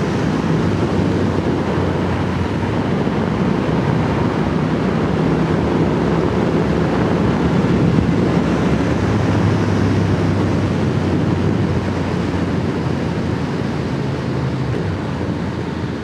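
Triumph Speed Twin's parallel-twin engine running under way, with steady wind rush over it. The engine note sits lower for a few seconds around the middle and picks up again near the end.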